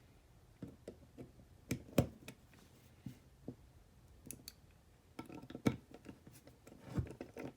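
Irregular metallic clicks and knocks as the parts of a freshly greased 1/2-inch drive flex-head ratchet are handled and fitted back together, with a short rattling cluster a little past the middle.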